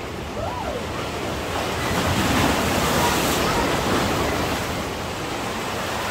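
Sea waves breaking and washing up a beach: the surf swells about two seconds in and eases off toward the end.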